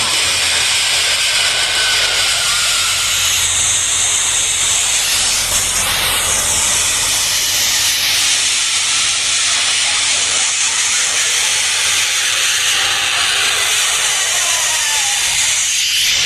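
A steady, loud hiss, strongest in the high range, with faint gliding whistle-like tones passing through it now and then.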